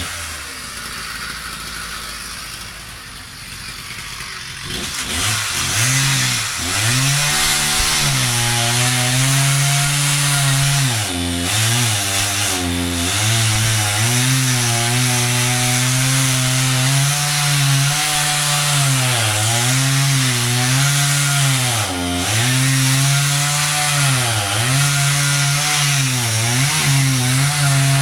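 Two-stroke chainsaw, quieter for the first few seconds, then running at high speed from about five seconds in. Its pitch dips repeatedly as it bogs down under load while cutting into the tree.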